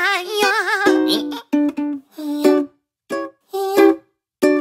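Background music: a wavering held note in the first second, then a bouncy run of short, plucked-sounding notes separated by brief gaps.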